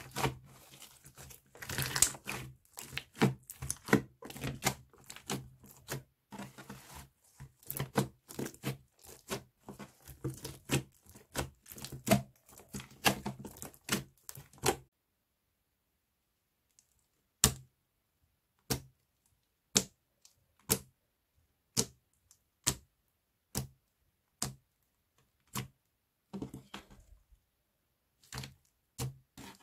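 Slime being squished and worked by hand. It makes dense crackly clicking for about the first fifteen seconds, then single sharp clicks about once a second.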